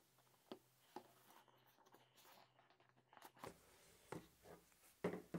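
Faint handling of a cardboard product box: scattered light clicks and rustles as the lid is worked off and the paper inside is touched.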